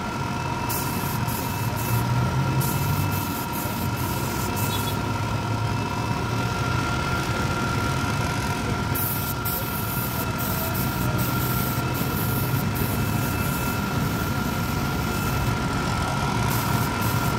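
Air compressor running steadily with a low hum and a constant whine, with short hisses of air coming and going on top.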